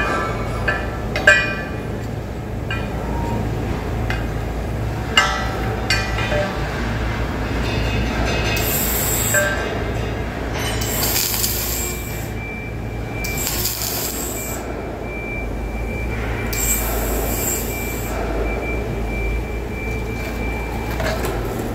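Steady hum of idling welding equipment, with a few sharp metallic clicks in the first seconds and four short high hisses of about a second each around the middle.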